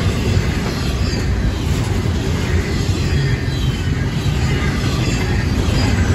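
Double-stack intermodal freight train's container well cars rolling past: a steady rumble of steel wheels on rail, with faint short high-pitched wheel squeals.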